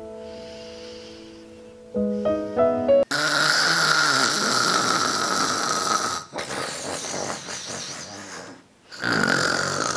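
Loud, drawn-out human snoring, three long snores in a row starting about three seconds in. Before it, soft piano music fades and a short plucked musical sting plays.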